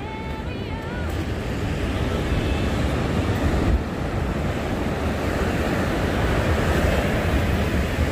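Ocean surf washing in on a sandy beach, a steady rushing wash, with wind buffeting the microphone as a low rumble.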